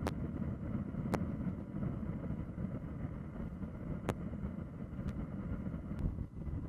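Steady low rumble of wind buffeting the microphone, with a handful of short faint clicks scattered through it.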